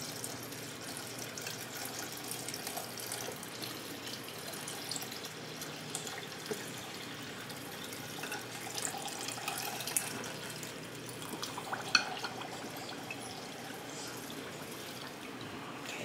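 Apple cider vinegar poured in a steady stream from a glass measuring cup into a glass bowl of sugar, with a couple of light knocks about ten and twelve seconds in.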